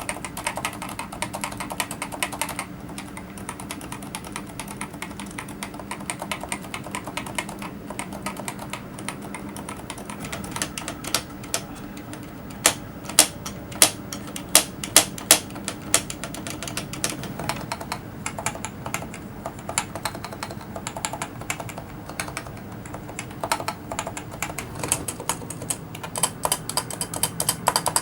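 Typing on a Topre Realforce 104UG high-profile keyboard with electrostatic capacitive rubber-dome switches: fast runs of key clicks at the start and again near the end, with slower, louder single key presses in the middle.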